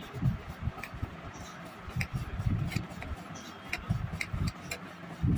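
Soldering iron tip jabbed repeatedly into a brass-wool tip cleaner, making a string of short clicks, several a second and unevenly spaced. Low, muffled thumps and rumble run underneath.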